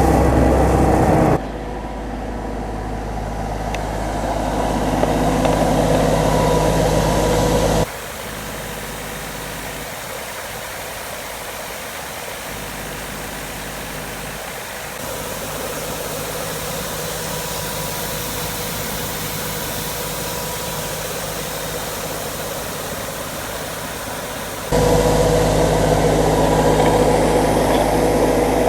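Farm machinery engine running steadily, heard in several clips joined by abrupt cuts: the sound changes suddenly about a second in, again about eight seconds in, and a few seconds before the end.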